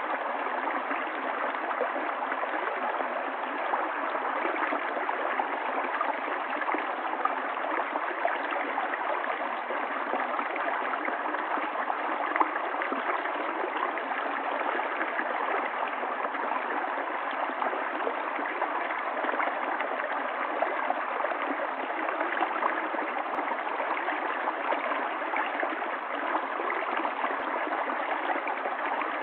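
Running water of a stream flowing steadily: an even, unbroken rush with a light gurgle, without deep rumble or high hiss.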